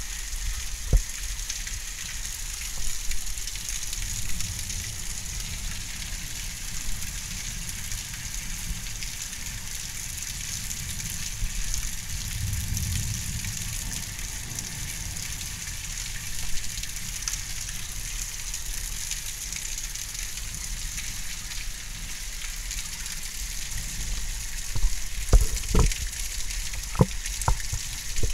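Heavy thunderstorm rain falling steadily, a dense hiss. A low rumble swells around the middle, and a few sharp knocks come near the end.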